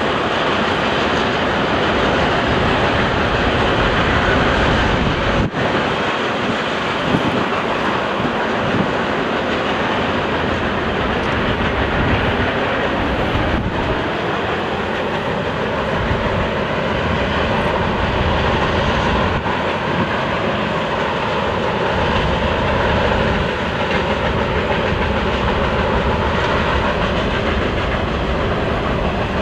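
Freight train's cars rolling past: a steady rumble of steel wheels on rail. From about halfway, a faint wavering tone runs over the rumble.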